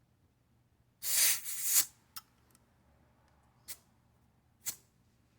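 Air hissing from a tire's valve stem as a pressure gauge is pressed on: one loud hiss lasting about a second, then a click and two short puffs of air.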